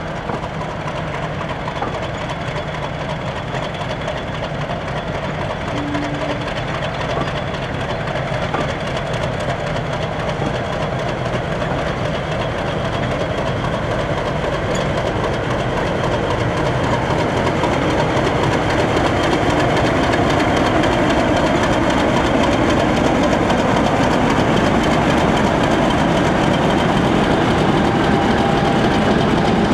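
A British Rail Class 50 diesel locomotive's English Electric 16-cylinder engine running as it moves slowly past with a rake of coaches, with the coach wheels clicking over the rails. The engine grows steadily louder over the second half as the locomotive draws close.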